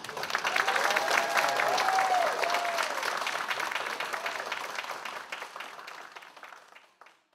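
Audience applauding, the clapping starting at once and strongest over the first few seconds, then thinning and fading out near the end.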